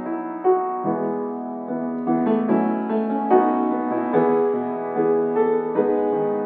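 Piano music, a steady run of notes and chords.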